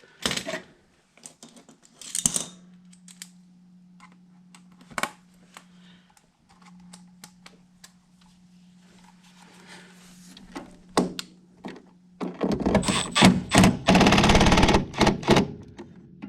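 Small clicks and knocks of screws and metal parts being handled, over a steady low hum. About twelve seconds in, a cordless driver runs in a loud rapid clatter for about three seconds, driving a screw to mount the new inducer draft motor.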